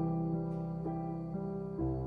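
Background music: soft piano or electric keyboard chords, a new note or chord about every half second.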